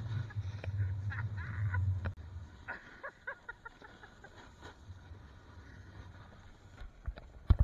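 Wind buffeting the camera microphone on a moving rider, a low rumble that dies away after about two seconds, with scattered scrapes and clicks of a board or skis on packed snow. A few sharp knocks come near the end.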